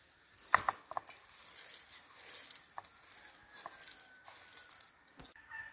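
Dry loose black tea leaves poured into a glass teapot, pattering and rattling onto the glass and the petals inside, with a few sharp clicks near the start.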